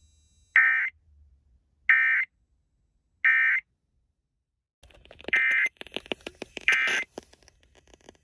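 Emergency Alert System end-of-message tones: three short bursts of the raspy digital data squawk, about a second and a half apart, marking the end of the alert. After a pause comes a crackly, noisy stretch with two more similar buzzing bursts.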